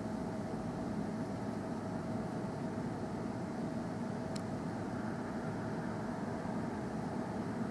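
Steady background rumble and hiss with a faint steady hum, and a single short click about four and a half seconds in.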